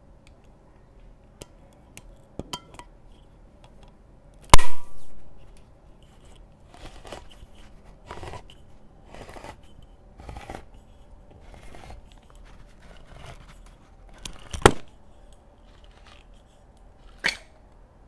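OXO Good Grips hand-crank can opener cutting open a steel can: a loud sharp click about four and a half seconds in, then a run of short grinding turns of the crank about a second apart, and two more sharp clicks near the end.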